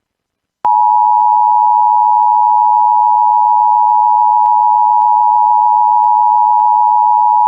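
Emergency Alert System attention signal: a loud, steady two-tone alarm that starts just under a second in and holds without a break. It warns of an emergency alert message.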